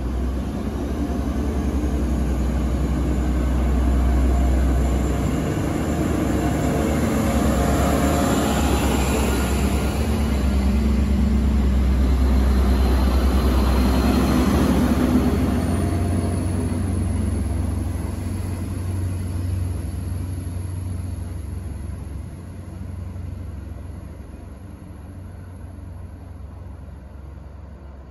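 Class 175 diesel multiple unit with underfloor diesel engines running heavily as it pulls away from the platform and its carriages pass close by, loudest in the middle, then fading away over the last ten seconds or so.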